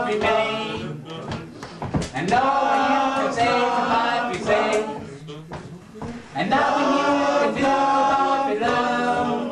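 A group of voices singing unaccompanied in long held phrases over a steady low note, breaking off briefly about a second in and again around five seconds in.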